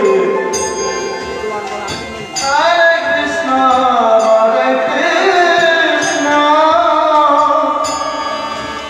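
Bengali kirtan music: a bamboo flute plays a sliding, ornamented melody over khol drum strokes, with a new phrase starting about two and a half seconds in.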